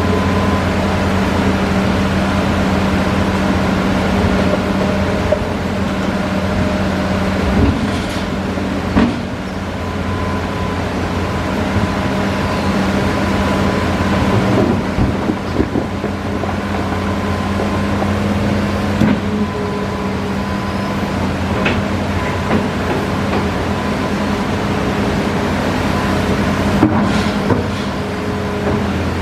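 Hitachi Zaxis 5G hydraulic excavator's diesel engine running steadily while it works, with a few sharp knocks along the way.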